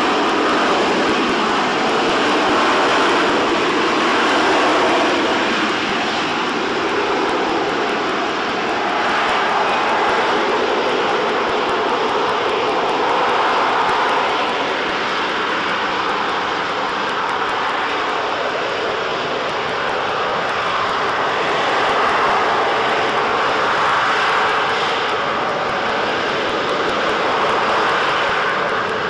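Harrier GR7 jump jet's Rolls-Royce Pegasus engine giving a loud, continuous jet roar with a faint whine, swelling and easing slightly every few seconds.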